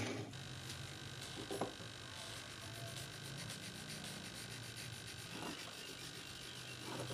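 Faint scratching of a felt-tip marker being rubbed over a steel blade, with a couple of light taps, over a low steady hum.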